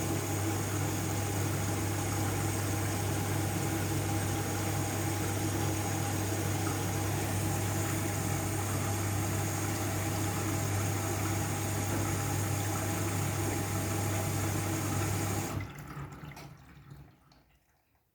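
Washing machine taking in water: a steady rush of water with a low hum, which cuts off suddenly about fifteen seconds in.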